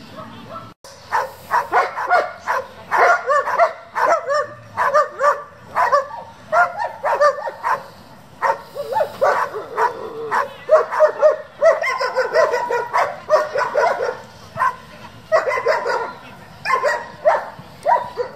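Young German Shepherd barking over and over in quick, high-pitched barks, a few a second, with a couple of short breaks: excited, aroused barking at a rag tug being teased in front of it in bite-work training.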